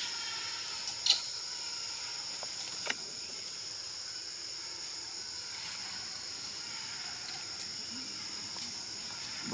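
Steady, high-pitched drone of insects, cricket- or cicada-like. There is a sharp click about a second in and a smaller one near three seconds.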